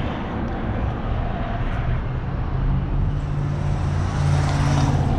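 A steady low mechanical hum, like a motor or vehicle running, over a wash of noise, growing louder over the last couple of seconds.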